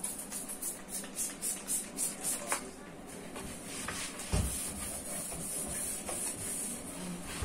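A cloth wiping the floor of a kitchen cabinet. For the first few seconds there are quick, even hissing strokes, about three a second, then steadier rubbing, with one dull thump about four seconds in.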